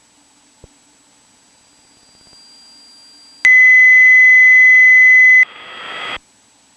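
A loud, steady electronic beep tone in the aircraft's intercom audio, held for about two seconds and cut off sharply, followed by a brief hiss.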